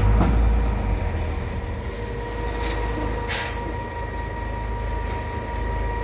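Boom-type concrete pump truck running: a steady low engine rumble under a constant whine, with a short high squeal about three seconds in and a fainter one near five seconds. The pump is working water and grout through to lubricate the line before the concrete pour.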